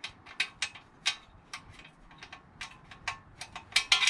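Small loose metal nuts and bolts clicking and clinking as they are handled and tried for fit, in irregular light taps with a quick cluster near the end.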